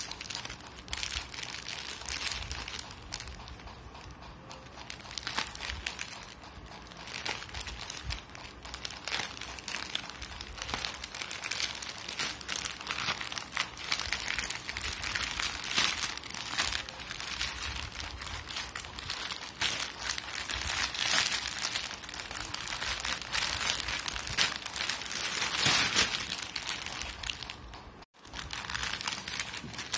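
Plastic courier mailer crinkling and rustling as it is cut open with scissors and its contents are pulled out, with a brief cut-out in the sound near the end.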